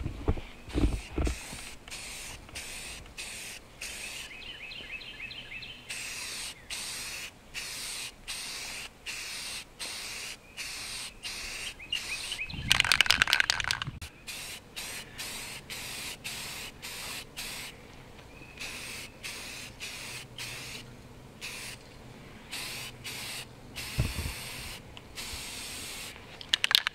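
Aerosol spray paint cans sprayed in many short hissing bursts, one after another with brief pauses between, laying a camouflage coat over tape stencils. About halfway through there is a louder burst of noise lasting about a second.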